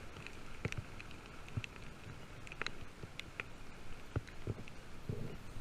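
Irregular footsteps and rustling through undergrowth, a scatter of soft thumps and sharper clicks.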